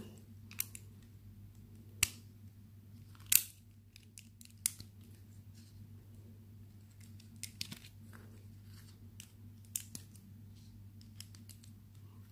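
Plastic Lego pieces being handled and pressed onto a Technic build: scattered clicks and snaps, the two loudest about two and three and a half seconds in, then many lighter clicks. A steady low hum runs underneath.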